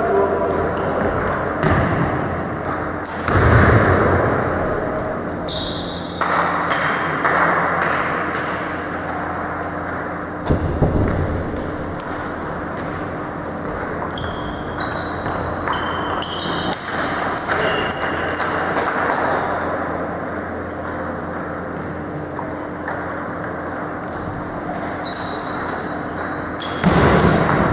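Table tennis rallies: the ball clicking off the rubber bats and pinging on the Donic table, one quick hit after another in a large hall, with a few heavier thuds among them.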